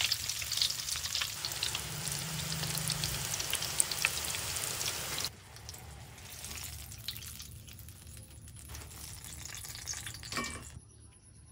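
Battered eggplant strips deep-frying in a wok of hot oil: a dense crackling sizzle. About five seconds in it drops to a quieter sizzle, with a light knock near the end before it nearly stops.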